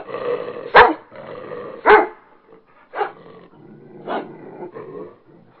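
A dog barking: four sharp barks about a second apart, the first two loudest and the last two fainter.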